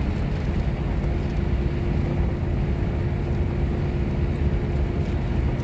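Steady engine and road noise inside the cab of a Workhorse chassis with an 8.1-litre Vortec V8, cruising at about 55 mph with the engine under little or no load as it coasts over a hill. There is a low rumble with a steady droning tone that firms up about a second in.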